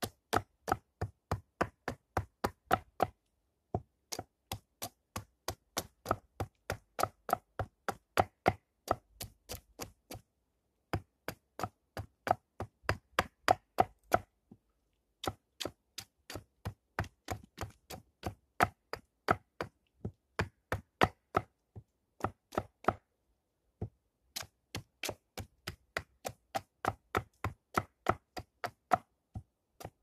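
Quick, evenly spaced chopping strikes of a small hand tool into a stick of wood held upright on a log chopping block, about three sharp knocks a second. The runs of strokes break off briefly four times and then resume.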